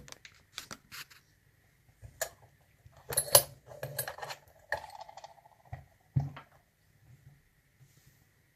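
Small metal clicks and clatter as lockpicking tools and a euro cylinder lock are handled and set down on a hard surface. A louder clatter comes about three seconds in, followed by a brief ringing tone.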